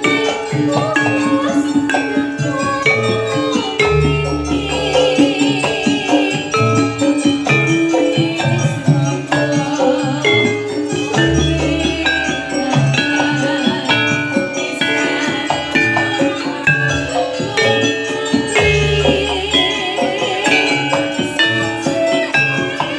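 Javanese gamelan playing jathilan music: bronze saron metallophones struck with wooden mallets over drums, in a dense, steady texture. A deep low stroke sounds about every seven and a half seconds.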